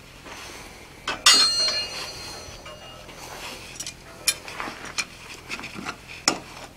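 Steel clanking at the anvil: one sharp clank with a ringing tail about a second in, then lighter metal clinks as steel tongs grip the hot hardy tool and lift it out of the anvil's hardy hole near the end.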